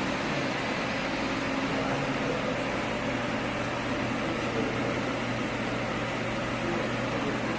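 Large Doosan PUMA 5100XLM CNC turn-mill lathe running, a steady hum with an even hiss.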